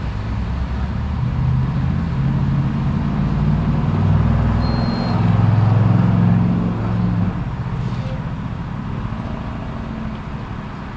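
Motor vehicle engine running close by, its low hum growing louder toward a peak about halfway through, then dropping off abruptly about seven seconds in to a quieter engine hum. A brief high beep sounds about four and a half seconds in.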